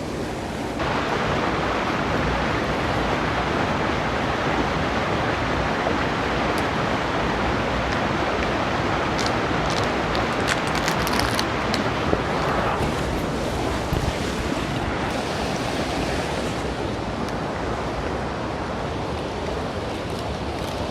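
Steady rushing of a waterfall and its stream.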